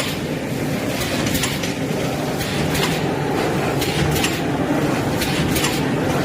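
Side-sealer shrink-wrapping machine running: a steady mechanical hum with irregular clicks and clacks a few times a second.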